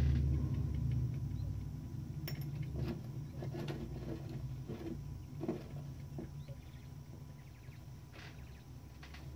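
Scattered light clicks and taps of small metal typewriter parts being handled and fitted during reassembly, over a low rumble that fades out in the first few seconds.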